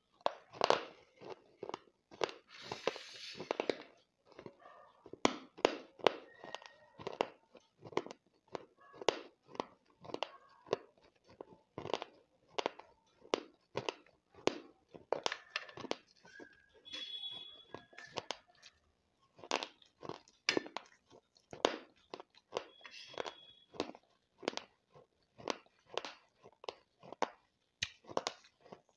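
Close-up crunching of baked clay pot crumbles being bitten and chewed, a steady run of sharp crunches about one or two a second.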